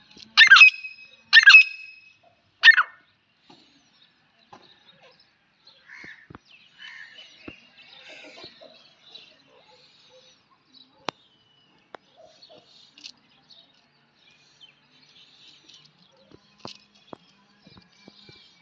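Grey francolins calling: three loud, short, harsh notes in the first three seconds, then only faint high chirping and a few small ticks.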